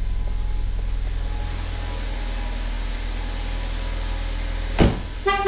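2018 Ford Focus ST's 2.0-litre turbocharged four-cylinder running at a steady idle, a low hum. Near the end a sharp knock, then a brief pitched tone.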